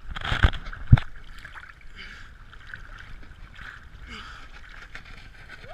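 Choppy sea water sloshing and splashing against an action camera's waterproof housing at the waterline, with two sharp knocks in the first second, the second one the loudest.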